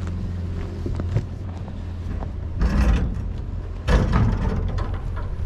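Engine idling with a steady low hum, with two short clattering noises about two and a half and four seconds in, the second starting with a sharp knock.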